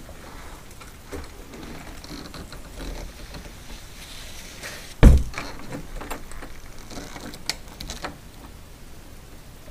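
Interior door being handled: a loud thump about halfway through, then rustling and a few light sharp clicks from its metal doorknob.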